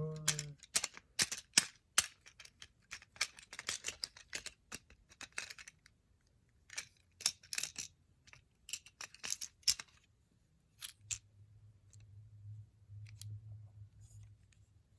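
Hard plastic parts of a Transformers action figure clicking and snapping as they are turned and pegged together: a quick run of sharp clicks, which thins to a few near the end. A faint low hum comes in over the last few seconds.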